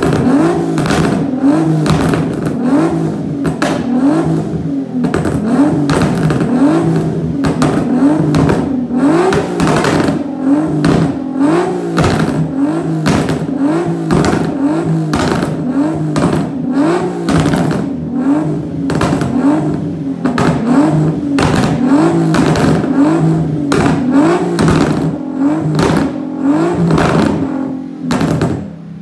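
Nissan 370Z's 3.7-litre V6, tuned and fitted with a single-exit Rev9 exhaust, blipped over and over, about once a second, with sharp crackling pops from the exhaust between the revs. This is the overrun popping of a tune set up to shoot flames.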